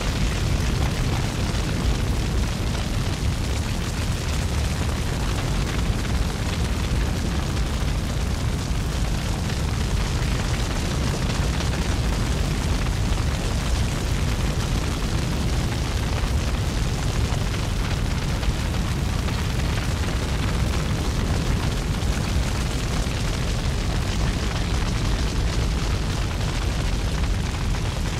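Continuous low rumbling noise, steady in level with no pauses or separate events.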